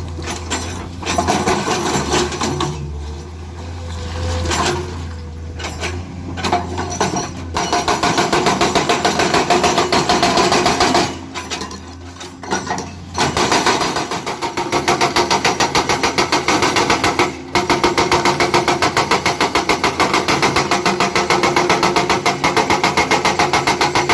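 Heavy diesel construction machinery working. From about seven seconds in, a rapid, steady hammering of several blows a second, typical of an excavator-mounted hydraulic breaker, which stops briefly twice.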